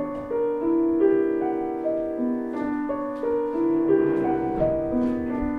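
Piano playing slowly, its notes held so that they overlap, with a new note about every half second to a second.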